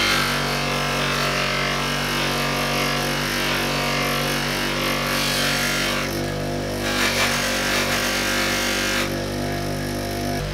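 Pro-Max bench polisher running steadily with a hum, a cotton buffing mop spinning on its shaft, while a steel sledgehammer head is pressed against the wheel for the final polish with green compound. This adds a rushing hiss that drops out twice, about six seconds in and again near the end, when the head comes off the wheel.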